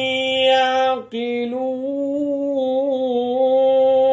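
A reciter's voice chanting the Quran in melodic tajweed style, holding long drawn-out notes on the closing words "li-qawmin ya'qilun", with one short break about a second in.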